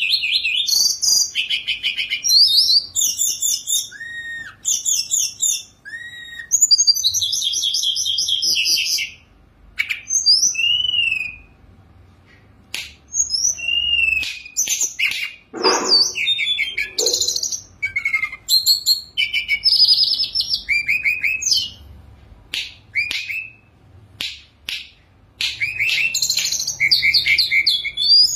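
A caged tledekan gunung (hill blue flycatcher) singing hard: a long run of varied, rapid phrases of trills, chirps and whistled glides, full of mimicked fill, broken by short pauses.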